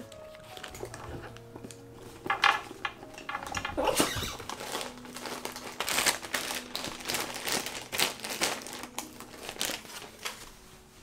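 Clear plastic zip-top bag holding bread rolls crinkling and rustling as it is handled and packed, in a run of irregular crackles, with a knock about four seconds in.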